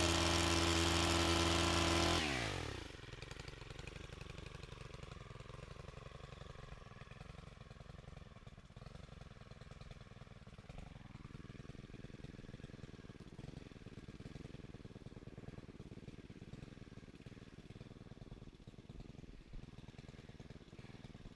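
Music stops with its pitch sliding down in the first few seconds, then a chainsaw engine runs faintly and steadily at a low idle.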